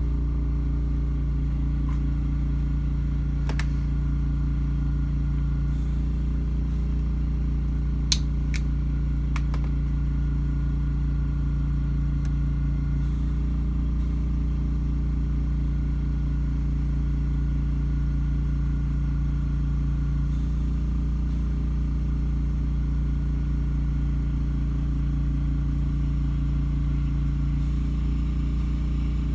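Steady low mechanical hum of a running motor, unchanged throughout, with a few sharp clicks about three and a half, eight and nine and a half seconds in.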